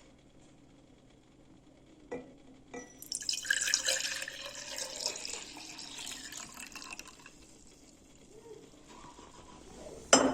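Whey pouring and splashing into a container for about four seconds, then dying away, after two light clicks. A single sharp knock near the end.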